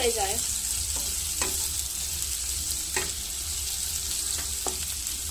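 Sliced onions sizzling steadily in hot oil in a non-stick kadai as a spatula stirs them, with a few light scrapes and knocks of the spatula against the pan.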